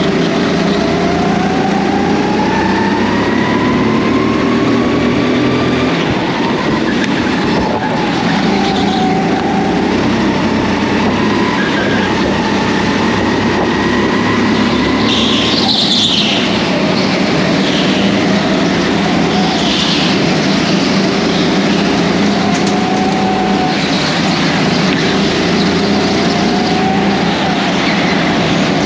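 Go-kart running at speed on a track, its motor pitch climbing steadily along the straights and dropping sharply under braking, several times over. Short high tyre squeals come through the corners, the strongest about halfway through.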